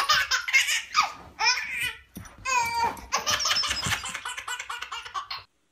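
A baby laughing hard in repeated bursts of belly laughs, breaking off suddenly near the end.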